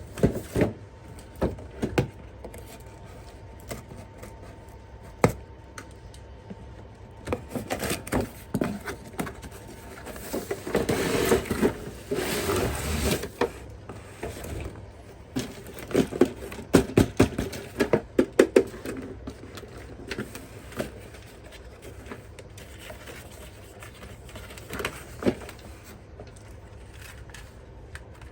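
Handling noises from toys and packaging: scattered clicks and knocks, a longer scraping, rustling stretch about eleven seconds in, and a quick flurry of sharp clicks a few seconds later.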